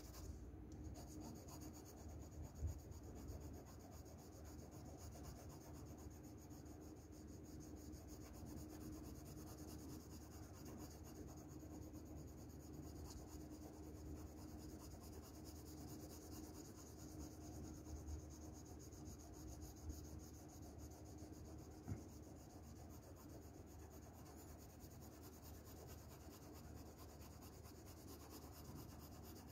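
Faint scratching of a shading pencil being moved over paper, steady shading strokes, over a faint steady hum.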